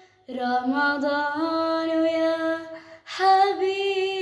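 A female voice singing unaccompanied, holding long, slightly gliding notes of an Arabic song, with short breaths about a quarter second in and about three seconds in.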